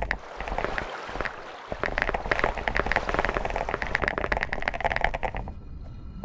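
Dense, rapid crackling and crinkling that stops about five and a half seconds in.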